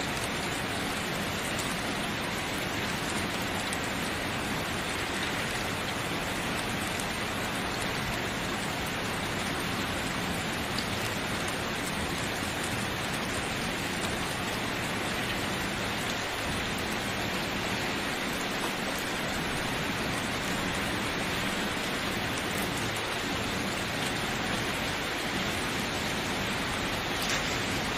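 Steady rain falling, a continuous even patter with a few individual drops ticking out now and then.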